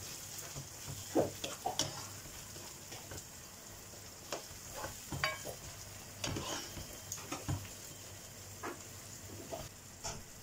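Onions and tomato sauce sizzling in a nonstick frying pan with a steady hiss, while a plastic spatula stirs them, scraping and tapping irregularly against the pan.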